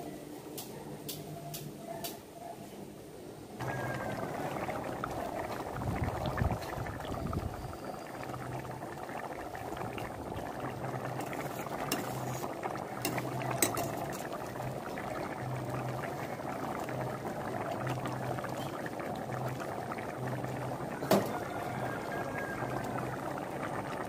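Spiced biryani masala water bubbling at a rolling boil in a metal pot, getting louder about three and a half seconds in, with a few sharp clicks from a metal slotted ladle against the pot.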